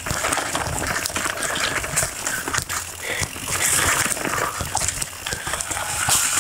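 Polygon Vander T7 full-suspension mountain bike riding fast over a leaf-covered dirt trail. The tyres crunch through dry leaves, and the bike rattles and knocks over bumps.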